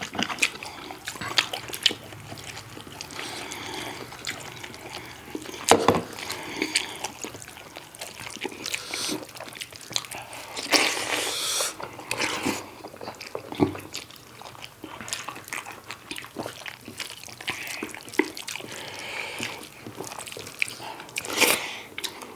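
Close-up wet eating sounds of pork curry and rice being eaten: chewing and lip smacks, with many short wet clicks and a few louder squelching bursts.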